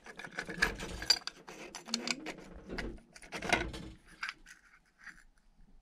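Metal parts of a Yamaha Slider scooter's variator (CVT drive pulley and its washers) clinking and scraping as they are slid off the crankshaft and handled by hand. The result is a run of irregular clicks and clatters, loudest near the start and again past the middle.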